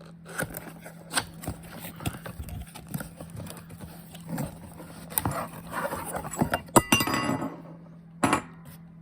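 A boxed deadbolt being unpacked by hand: packaging rustling and scraping, with scattered clicks and metal clinks from the lock hardware. The rustling is busiest a little past the middle, and there is a single louder knock near the end.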